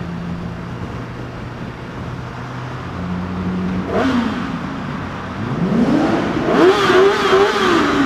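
Kawasaki ZX-10R inline-four sport-bike engine inside a road tunnel, running steadily, then blipped once about four seconds in and revved hard from about five and a half seconds, its pitch climbing high, wavering and dropping back near the end.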